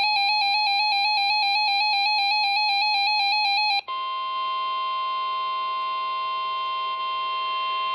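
Emergency Alert System warning tones: a rapidly pulsing electronic beep for about four seconds, then, after a brief break, a steady unbroken alert tone, the attention signal that comes before a severe thunderstorm warning message.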